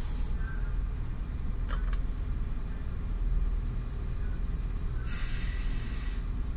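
Steady low rumble of heavy marine machinery running, with a brief hiss lasting about a second near the end.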